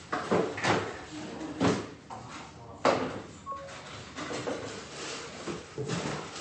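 A smartphone set down on a wooden tabletop with a sharp knock about three seconds in, followed half a second later by a brief chime as it starts wireless charging. Several smaller knocks and handling noises come before and after.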